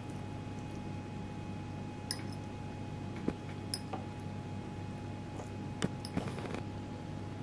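A metal fork clinking and scraping lightly against a ceramic plate, a few separate small clicks with a short cluster near the end, over a steady faint hum.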